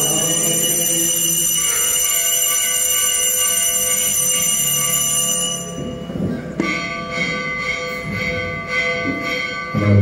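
Bells ringing at the blessing with the monstrance in Eucharistic benediction. A steady, continuous ringing cuts off about five and a half seconds in, then another bell ring starts with fast, repeated strokes.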